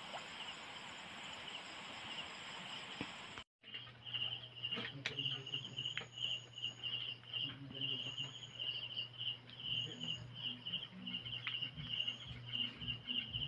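Crickets chirping in a steady pulsing trill over a low steady hum. For the first three and a half seconds a broad hiss lies over them; then the sound drops out for a moment and the chirping returns clearer.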